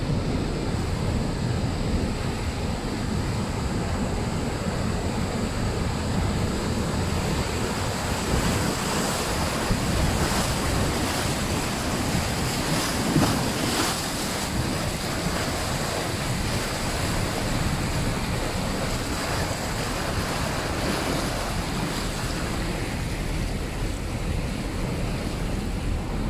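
Turbulent, foaming river water rushing below a waterfall, heard from a boat close to the surface, with wind buffeting the microphone. The noise is steady throughout, a little stronger around the middle.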